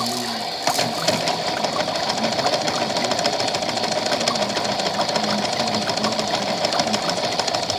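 Washing machine running with a fast, steady mechanical clatter.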